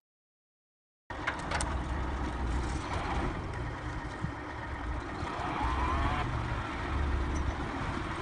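After about a second of silence, a motor vehicle's engine cuts in abruptly and keeps running with a low rumble that swells and eases.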